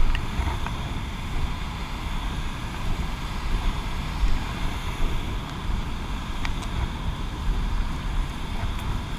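Steady roar of a rushing mountain river's white-water rapids, with wind rumbling on the microphone and a few light clicks.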